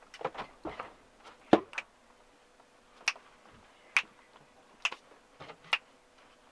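A series of sharp clicks and taps, roughly one a second, the loudest about one and a half seconds in, over a faint steady hum.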